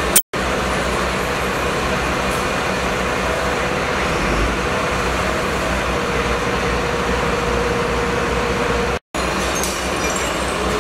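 Fire engine running steadily at the scene, its engine driving the pump that feeds charged hoses: a dense, even drone with a low hum. A faint steady whine sits on top between about six and nine seconds in, and the sound cuts out briefly twice, once just after the start and once about nine seconds in.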